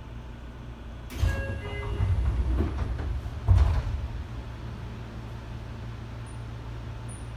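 Seibu 6000 series commuter car's sliding passenger doors working: a short door chime of a few tones about a second in, the door mechanism running, then a sharp thud about three and a half seconds in as the doors reach their stop. A steady low hum from the standing train runs underneath.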